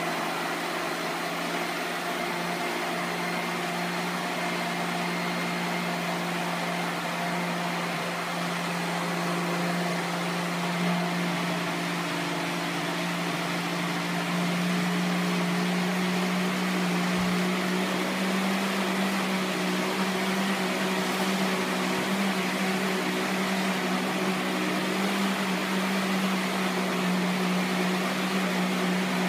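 Electric blender running steadily, mixing chocolate cake batter: a steady motor hum that gets slightly higher and louder about halfway through.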